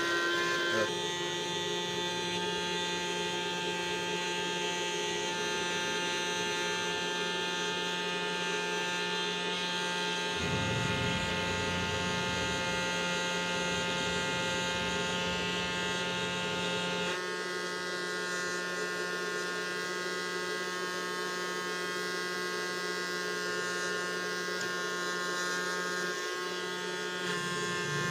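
Small DC motor of a homemade plastic-bottle vacuum cleaner running at a steady speed with a buzzing whine. Its tone shifts slightly about ten seconds in and again about seventeen seconds in.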